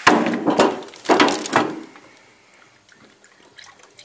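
Liquid hardener poured from its container into a plastic mixing cup of filler primer, in two pours over about the first two seconds, then only faint small knocks.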